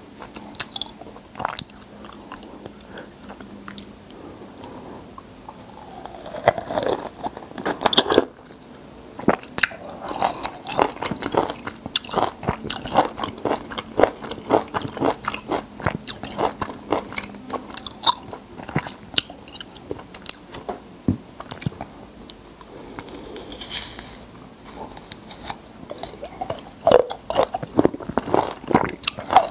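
A person biting into and chewing a peeled whole citrus fruit close to the microphone: a steady run of quick, crisp crunching clicks and mouth sounds, getting busier after the first several seconds.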